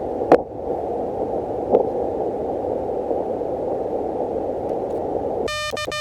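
Elecraft KH1 handheld transceiver's receiver hiss on the 20-metre CW band, with two sharp clicks, one just after the start and one a little under two seconds in. Half a second before the end, its Morse code sidetone starts keying again.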